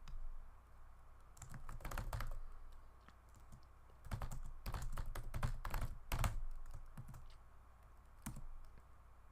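Typing on a computer keyboard in two quick runs of key clicks, with a single keystroke near the end.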